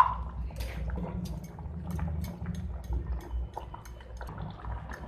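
Paneer and potato curry simmering in a pan, its thick gravy bubbling with small irregular pops, and a spatula stirring wetly through it, over a steady low hum.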